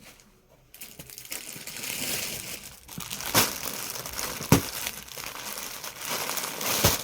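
Plastic packaging crinkling and rustling as suits are handled and unpacked, with a few sharp snaps.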